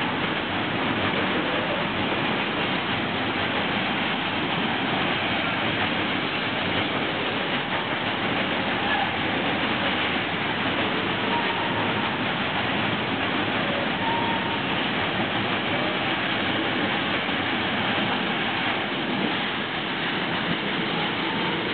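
Container freight train departing, its wagons rolling past on the track: a steady rushing noise of wheels on rails, with no clear clickety-clack beat.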